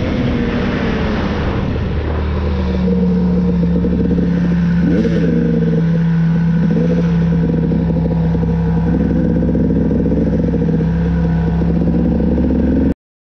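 KTM 250 XC two-stroke dirt bike engine running while riding, revving unevenly at first and then holding a steady pitch with brief throttle blips. It cuts off suddenly near the end.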